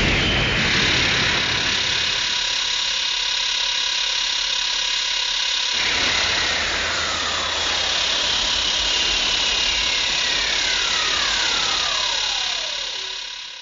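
King Ghidorah film sound effect: a dense, steady noisy rumble with high whistling tones gliding down in pitch from about six seconds in, fading out at the end.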